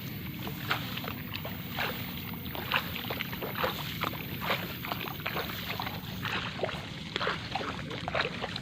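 Irregular sloshing and splashing of shallow water, many short splashes and clicks in no steady rhythm, as of someone wading through a flooded field.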